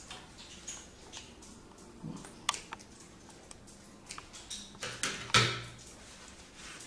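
Small scissors snipping loose thread ends off a freshly sewn jeans hem: scattered light snips and clicks with handling of the denim, the loudest about five seconds in.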